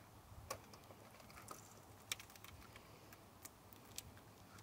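Near silence broken by a handful of faint, sharp clicks and taps, the sharpest about two seconds in.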